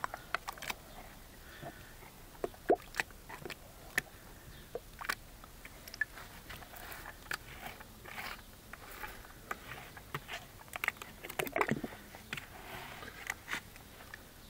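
Thick paint being churned by a bare hand and arm in a plastic bucket: irregular wet squelches and slaps, busiest in the second half.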